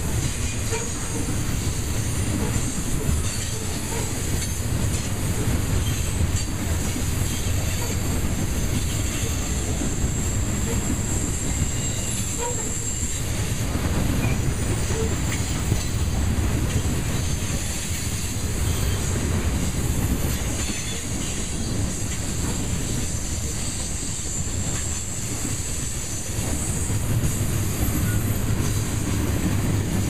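Covered hopper cars of a freight grain train rolling past: a steady low rumble of steel wheels on rail.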